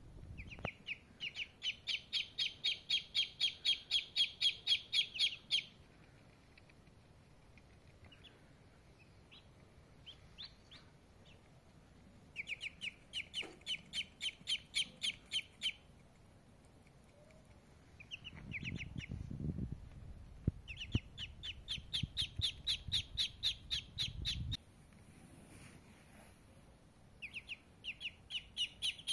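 A domestic duckling peeping in quick, even bouts of about five high peeps a second, four bouts with short pauses between them. A low rumble runs underneath for several seconds around the third bout.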